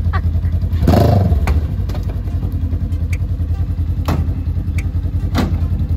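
An engine running steadily, with a few sharp knocks and clatters over it, the loudest about a second in.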